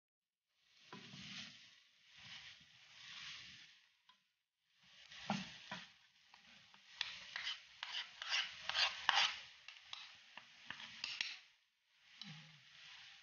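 Wooden spatula stirring and scraping bitter melon, egg and glass noodles around a metal frying pan, the food sizzling as it stir-fries. After a short pause about four seconds in, the scrapes and taps of the spatula against the pan come quick and dense, loudest in the middle.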